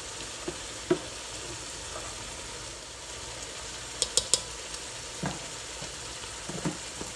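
Salmon pieces and vegetables sizzling steadily as they fry in an enamelled pot. A few light clicks and taps from the measuring spoon against the pot, with three quick ones about four seconds in.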